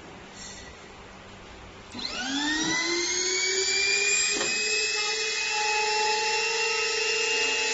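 Aucox MY 06B edge banding machine's motor switching on about two seconds in: a whine that climbs quickly in pitch as it spins up, then holds steady at full speed.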